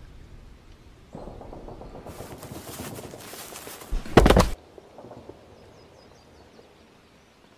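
A single loud gunshot about four seconds in, the loudest event, after a couple of seconds of rough hissing noise. It is a film sound effect.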